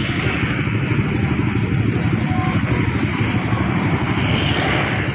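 A large bus engine running steadily, with road noise and a hiss that swells about four seconds in; no horn sounds.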